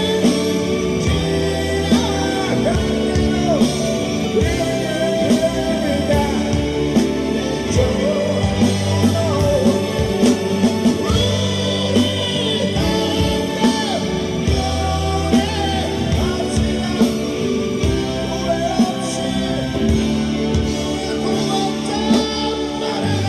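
Live band playing a slow rock ballad, with drums and bass under a sung melody line.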